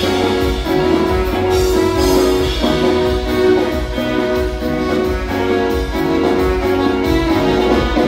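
Live band playing an instrumental passage: held melodic notes over a steady beat.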